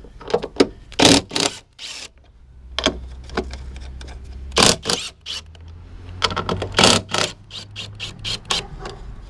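Cordless impact wrench with a 13 mm socket and extension, hammering in several short bursts of rapid clatter as it undoes the strut top-mount nuts on a BMW's front strut tower.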